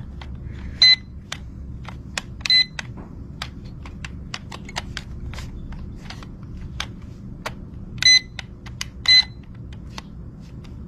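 Four short high beeps from a toy drone's remote controller as its sticks and buttons are worked, among many small plastic clicks. The drone's propellers do not start.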